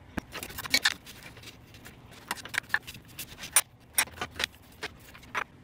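Steel combination wrench clinking on an engine mount bolt as it is turned out a couple of flats at a time: a series of irregular sharp metal clicks.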